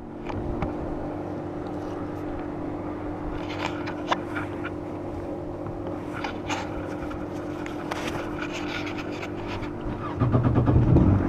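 Yamaha FX SVHO jet ski's supercharged four-stroke engine running at idle with a steady hum. About ten seconds in it gets louder and deeper.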